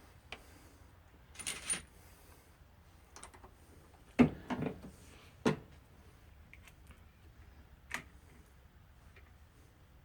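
Scattered clinks and knocks of brass rifle cases and reloading tools as .270 cases are sized and primed. A short rattle comes early, a sharp knock about four seconds in is the loudest, another follows about a second later, and a lone click comes near the end.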